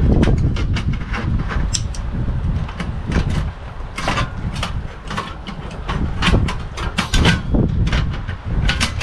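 Repeated metal clicks and clatter as butane canisters are handled and seated into portable butane camp stoves, over a low rumble of wind on the microphone.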